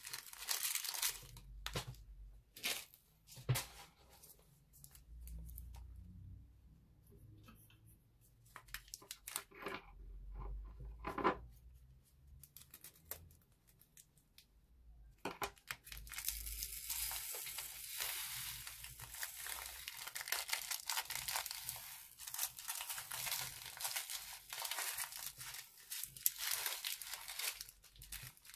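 Crinkling of a thin plastic bag being squeezed and shaken as small beads spill from it into a glass dish, with a sharp snip of small scissors cutting open another bag about halfway through. Then a continuous dense rattle and hiss of tiny beads pouring out of the bag and being pushed around in the dish.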